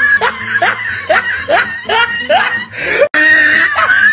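Looped laughing sound effect: short, rising bursts of laughter about three a second. It cuts off for an instant about three seconds in and starts over.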